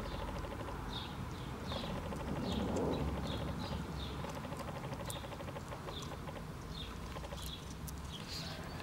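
Small bird chirping outdoors: short high chirps about twice a second, with a brief lull midway, over a steady low rumble.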